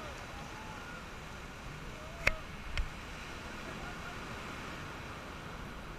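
Steady rush of surf and wind on the beach, with faint distant shouts and voices. A little over two seconds in there is a sharp knock, the loudest sound, and a weaker one about half a second later.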